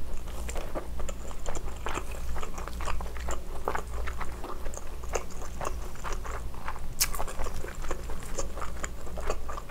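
Close-miked chewing and wet mouth sounds of a mouthful of spicy steamed scallop, with many small clicks and one sharp click about seven seconds in.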